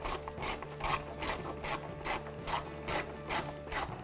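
Hand ratchet with a 10 mm socket and extension clicking as it is swung back and forth to snug up a bolt, a regular run of about two to three clicks a second.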